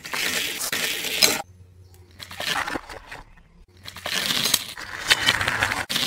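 Die-cast metal toy train rattling down a plastic ramp and along plastic toy track. There is a clatter for about a second and a half, then a second clatter from about four seconds in, with sharp clicks as the train meets the plastic snow piece.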